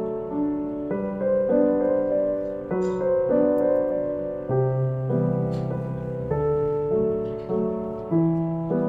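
Background piano music: soft, steady notes changing about every half second to a second.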